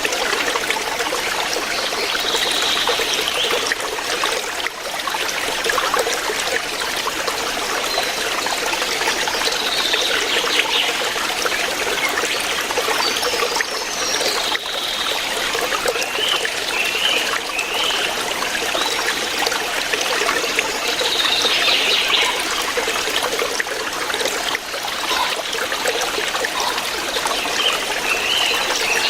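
Stream water flowing steadily over rocks, with a few short high chirps scattered through it.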